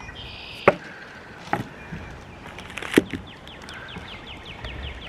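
Three sharp knocks, the first and last the loudest. In the second half, a bird calls in a fast run of short falling chirps.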